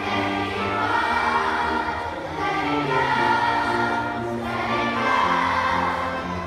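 Live music from a small band ensemble, with a large group of children singing along.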